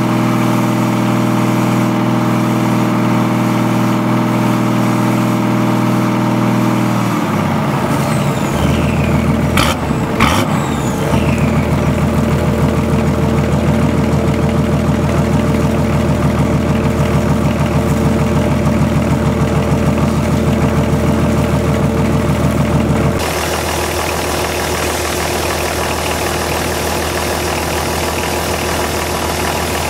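BMW Marine D190 diesel engine (VM-built) running on a test stand after a rebuild. About seven seconds in its note changes, there are a couple of sharp clicks around ten seconds, and it then runs with an uneven throbbing pulse. This rough running is what the owner puts down to a leaking shaft seal at the front of the injection pump letting air into the fuel.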